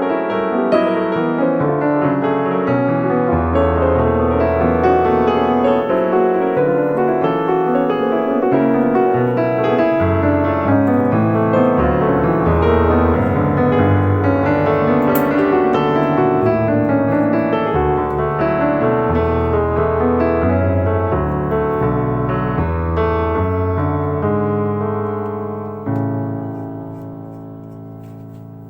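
Background piano music with a moving bass line, ending on a held chord that fades out near the end.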